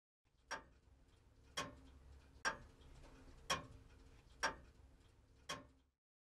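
Clockwork ticking: six crisp clock ticks about a second apart, over a faint low drone.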